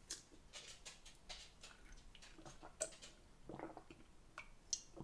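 Faint close-up mouth sounds: scattered small lip smacks and clicks, then sips and a swallow from a glass of drink about three and a half seconds in.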